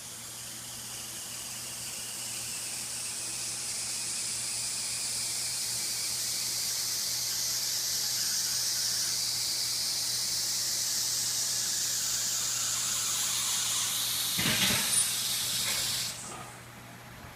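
Hydraulic car lift being lowered: a steady high hiss from the release valve that builds over the first few seconds, with a few short knocks near the end, then cuts off suddenly as the lift comes down.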